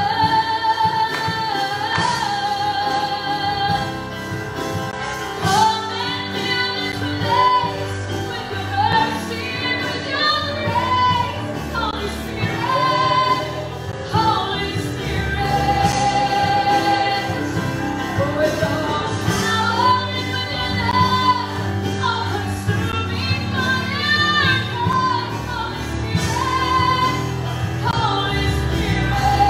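A woman singing a gospel song solo, backed by a live band of electric guitars, bass guitar and keyboard. Her long held notes waver with vibrato.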